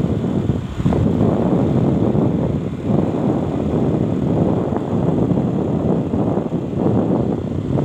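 Wind and road noise on a moving two-wheeler: a steady, flickering rumble buffeting the microphone.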